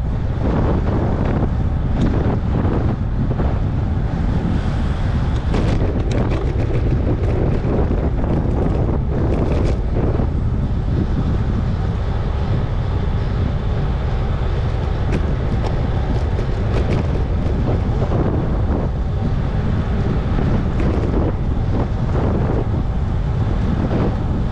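Steady wind rumble on the microphone of a camera carried along on a moving road bicycle at speed.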